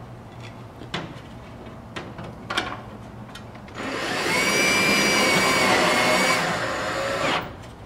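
Cordless drill driving a screw that fastens a light clip to the underside of a grow rack's flood tray: a few light handling clicks, then the drill motor runs with a steady whine for about three and a half seconds and stops, the screw driven tight.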